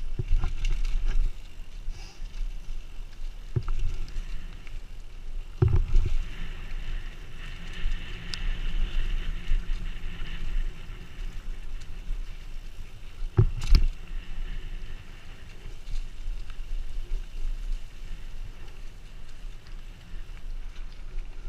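Mountain bike riding down a dirt forest trail, heard from the rider's own camera: a steady rumble of tyres and rattling bike with wind on the microphone, broken by several sharp knocks as the bike hits bumps, the loudest about 13 seconds in.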